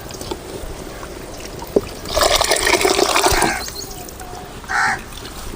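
Mashed tomato and tamarind water poured into the rasam pot, a splashing pour starting about two seconds in and lasting about a second and a half.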